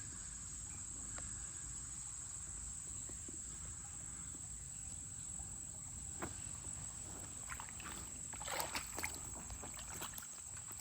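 Faint outdoor background with a steady, thin high-pitched tone, and a short patch of rustling and clicks about eight seconds in.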